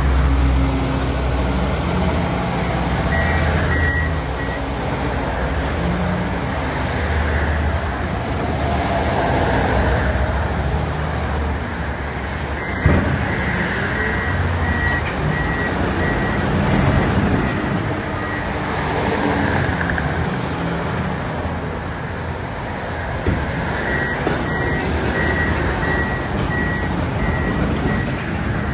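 Diesel engines of heavy construction machinery running steadily, with a backup alarm beeping in three separate spells as a machine reverses. One sharp clank a little before the middle.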